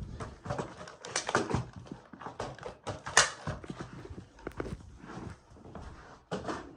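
Irregular clicks, knocks and rustles of things being handled and moved, with no steady motor sound.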